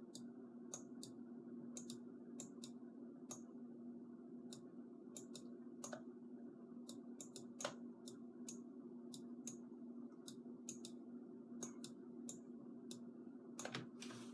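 Faint, irregular clicks at a computer, a few a second, over a steady low hum.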